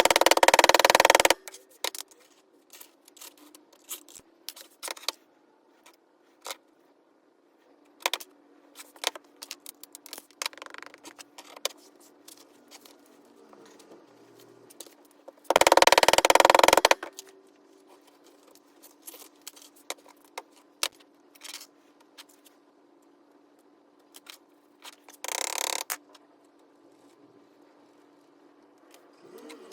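Small metal objects clinking and scraping over a steady low hum, broken by three loud bursts of rushing noise: one at the start, one about halfway and a shorter one near the end.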